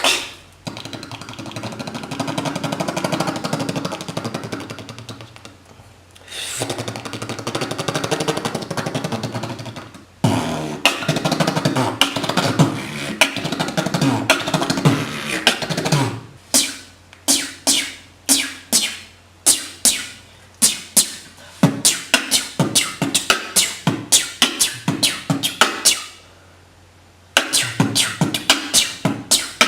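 Beatboxer making sound effects with his mouth. First comes a long buzzing rattle, broken by a short gap, then a stretch with gliding pitches. After that comes a run of sharp clicks and pops at about two a second, which stops for a moment near the end and comes back faster.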